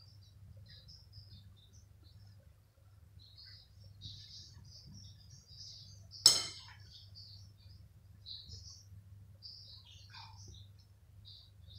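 One sharp knock with a short ringing clink about six seconds in, as a cat leaps up against a wooden cabinet and potted plant. Faint scattered bird chirping and a low steady hum run underneath.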